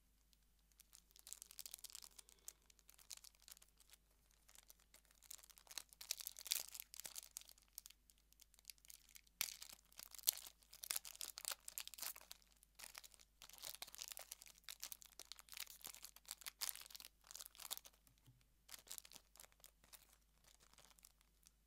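Foil wrapper of a trading-card booster pack crinkling and tearing as hands work it open, in many short crackly bursts with brief pauses between.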